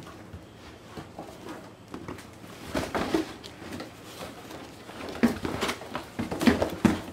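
Handling noise from unpacking: rustling and short knocks of a box and thermocol packing being moved. The noise comes in a cluster about three seconds in and again, more busily, from about five seconds on.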